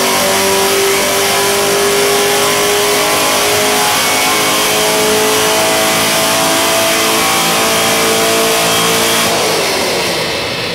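Car engine at full throttle on a chassis dyno, its pitch climbing slowly and steadily through the revs in one long pull, then lifting off and falling away about nine seconds in.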